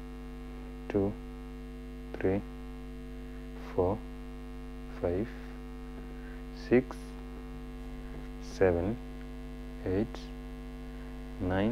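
Steady electrical mains hum throughout. A voice counts out the seconds over it, one short word about every second and a half.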